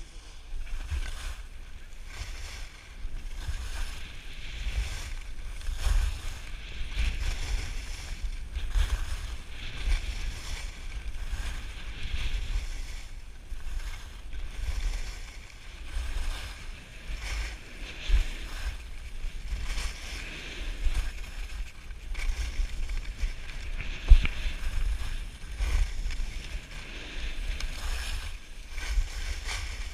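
Wind rumbling on the microphone during a fast downhill ski run, with the hiss of skis sliding and scraping over packed snow that swells with each turn. One sharp bump stands out about three-quarters of the way through.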